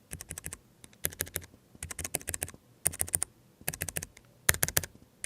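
Keychron K3 v2 low-profile optical keyboard fitted with white linear switches (a light 30 g press) being typed on. Its keys make short runs of several quick clicks, about one run a second.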